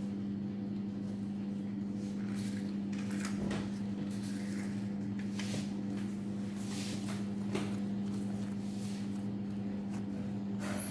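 Soft handling sounds as hands shape siopao dough and set buns into paper baking cups, over a steady low hum. A single sharp click with a brief high ring near the end.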